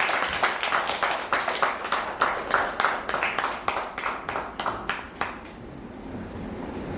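Audience applause. It thins out into a few separate claps and stops about five seconds in.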